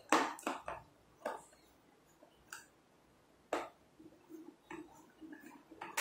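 Irregular sharp clicks and taps of a small metal tool and fingers on the plastic-and-metal front panel of a Bluetooth smart door lock, about half a dozen strong ones in the first few seconds, then fainter ticking near the end.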